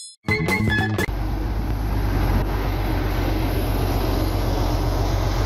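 A short electronic jingle ends about a second in. It gives way to the steady running of a Caterpillar hydraulic excavator's diesel engine with a deep, even hum.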